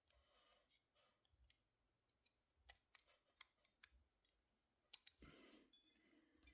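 Faint, scattered clicks of safety wire pliers and safety wire being handled, about half a dozen over a few seconds, with a brief soft rustle near the end.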